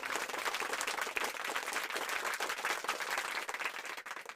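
Applause: many hands clapping in a dense, even patter that cuts off abruptly near the end.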